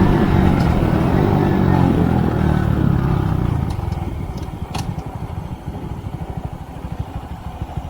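Honda Monkey bike's single-cylinder engine coming down off the throttle, its pitch falling and fading, then settling into a slow, lumpy idle.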